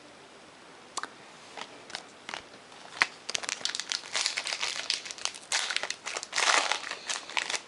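Foil wrapper of a trading-card pack being torn open and crinkled: a few scattered ticks at first, then dense crackling from about three seconds in.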